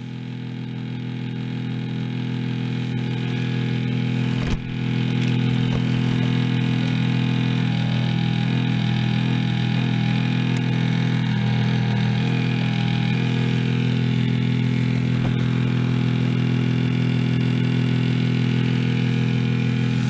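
Refrigerator condenser fan motor running with a loud, steady rumbling hum. The plastic fan is loose on its worn motor, which the repairer takes for a shot fan bearing. A brief knock about four and a half seconds in.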